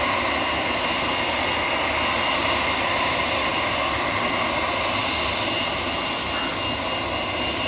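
Airbus A321's twin jet engines running at taxi thrust as the airliner rolls along the taxiway: a steady whine with several held tones over a continuous rush.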